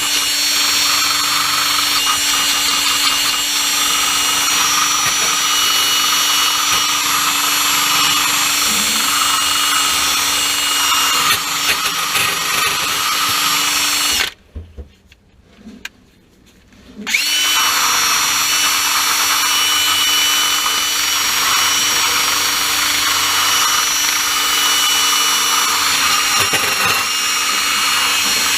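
A handheld power tool's motor running steadily under load. It stops about halfway through and starts again about three seconds later.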